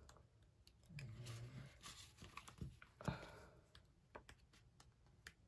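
Faint rustles and soft flicks of paper as the pages of a sticker book are leafed through, with scattered small clicks.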